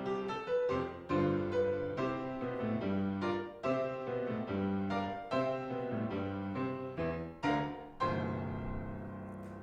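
Piano playing a slow piece of struck chords and single notes, ending on a held chord about eight seconds in that rings until it cuts off.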